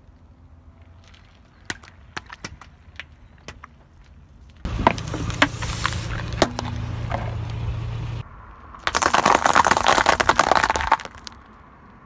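A car tyre rolling over and crushing objects on asphalt. First come scattered sharp cracks. Then a louder stretch with a low rumble and snaps starts and cuts off suddenly, followed near the end by about two seconds of dense crackling.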